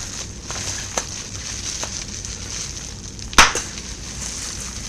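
Large-bubble bubble wrap being popped by biting: a couple of faint clicks, then one loud, sharp pop about three and a half seconds in.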